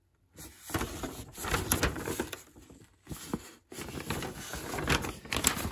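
Handling noise of a metal network switch and its mounting hardware: irregular clicks, knocks and rustling as it is picked up and turned in the hands, with a short break about three seconds in.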